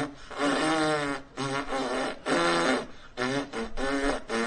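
King Julien's attempt at whistling, voiced as a man's tooting mouth-made notes instead of a real whistle: a string of short notes, about eight of them, wavering up and down in pitch like a tune.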